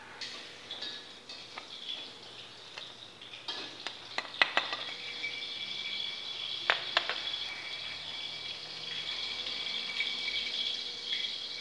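A few sharp clinks and knocks of kitchen utensils, then a steady sizzle of hot oil frying from about five seconds in.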